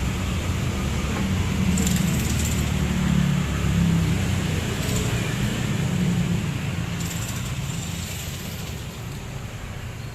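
Freshly rebuilt Yamaha RX-King 135 cc two-stroke single-cylinder engine running steadily, growing quieter over the last few seconds.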